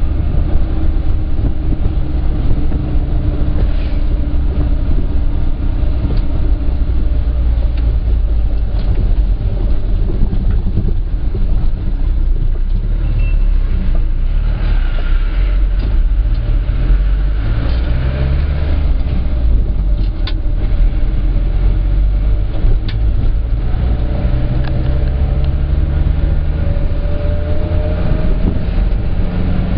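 Minibus engine and road noise heard from inside the cab, a steady low rumble. The engine note rises twice, around the middle and again near the end, with a few sharp clicks and rattles.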